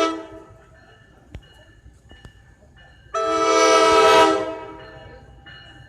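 NJ Transit train horn sounding a chord of several tones: a short toot at the start, then a long blast about three seconds in that fades away over about a second.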